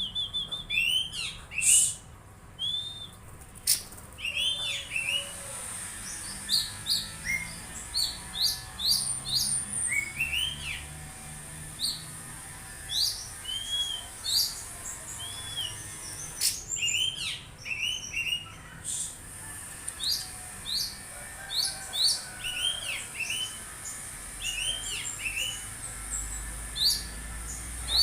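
Oriental magpie-robin singing: a rapid, continuous run of short, sharp upswept chirps mixed with arched whistled notes, over a steady high hiss.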